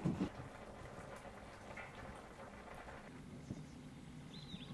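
Quiet ambience: a light knock at the start, then faint background hush, and a bird's short high chirp near the end.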